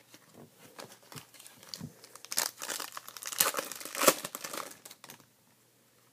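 A foil wrapper of a 2014 Topps Finest baseball card pack being torn open and crinkled by hand. There are light rustles at first, and the tearing and crinkling is loudest in the middle, stopping about five seconds in.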